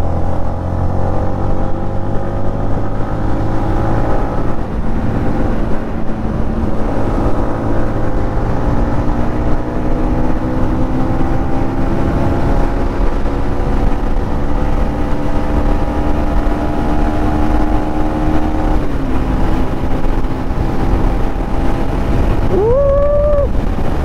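Motorcycle engine running at speed, its pitch climbing slowly as the bike gathers pace, then dropping about three-quarters of the way through as the throttle is rolled off. A steady low road and wind rumble runs underneath.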